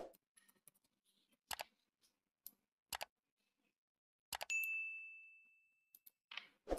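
Subscribe-button animation sound effects: a few sharp mouse clicks, then a single bell ding about four and a half seconds in that rings out for over a second.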